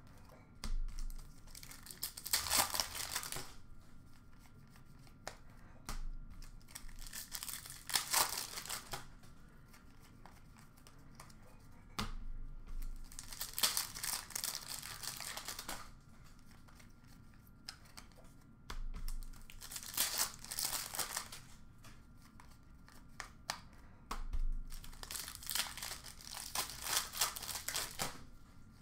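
Plastic wrappers of Upper Deck hockey card packs being torn open and crinkled, in about five separate bursts a few seconds apart.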